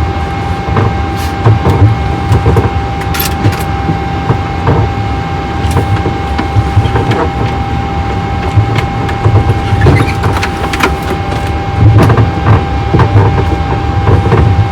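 Airliner flight-deck noise during pushback while engine number 2 is being started: a steady low rumble with a constant whine over it and a few faint clicks.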